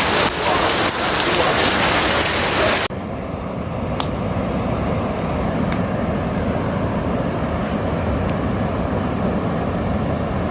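Loud, steady hiss of rain and rushing floodwater that cuts off abruptly about three seconds in, giving way to a lower, steady rumble with a few faint clicks.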